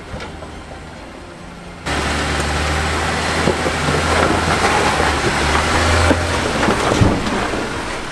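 Jeep Gladiator Mojave's engine running at low speed under load while rock crawling, with the tyres crackling and grinding over rock. It gets suddenly louder about two seconds in, and a single sharp knock comes near the end.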